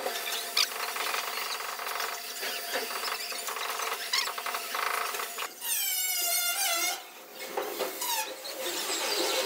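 Stick-welding arc crackling and sizzling against sheet metal. About halfway through it gives way to a wavering, high-pitched squeal.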